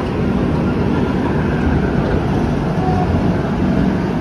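Vaishali Superfast Express passenger coaches rolling past on the next track as the train pulls in to stop: a steady rumble of wheels on rail.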